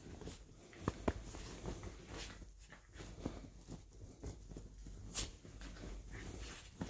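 Faint rustling of a bed comforter with scattered soft thumps and clicks as two miniature dachshunds scuffle and scramble across it.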